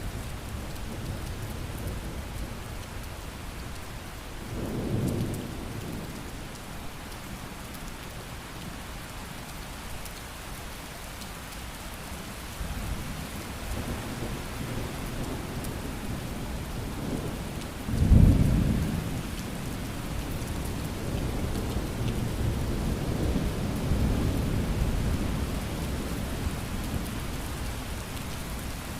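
Steady rain falling, with thunder. A rumble comes about five seconds in, a sudden, louder thunderclap about eighteen seconds in, and further rumbles in the last third.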